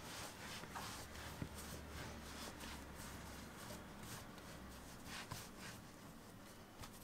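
Faint soft rubbing and brushing of hands rolling and pressing a log of soft dough on a floured tabletop, with a light tap about one and a half seconds in.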